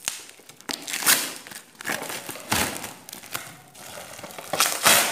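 Bubble-wrap packaging crinkling and rustling as it is pulled and handled out of a cardboard parcel, in several short bursts, the loudest near the end.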